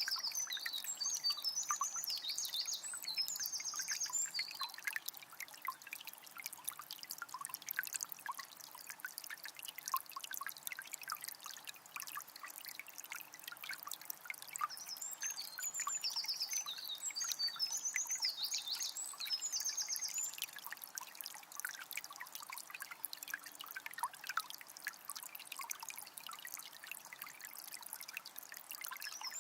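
A small spring's water trickling and splashing continuously. A bird sings a high, trilling song phrase at the start, again about halfway through, and once more right at the end.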